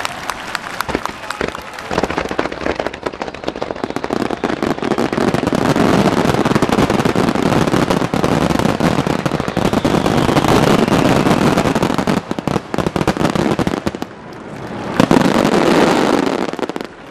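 Fireworks finale barrage: a dense, continuous run of crackling reports and booms, dipping briefly about fourteen seconds in before a last loud swell.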